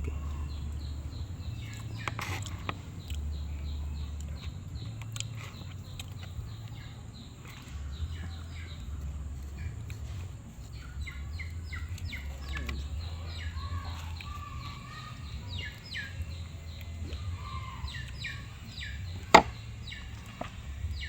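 Scattered chops and knocks, with birds chirping over a low steady rumble; one much louder sharp knock comes near the end.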